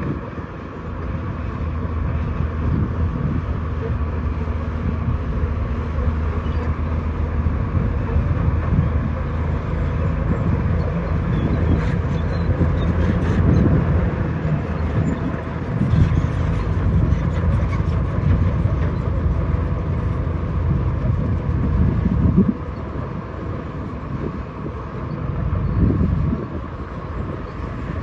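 Heavy earthmoving machinery, such as a bulldozer and dump truck, running at work with a steady low diesel engine hum and rumble. The sound drops in level about two-thirds of the way through.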